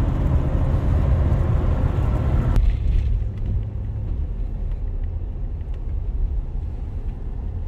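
Road and wind noise inside a pickup truck's cab at highway speed: a steady low rumble under a loud hiss. About three seconds in, the sound cuts to a quieter, lower road rumble, with the truck on a slower road.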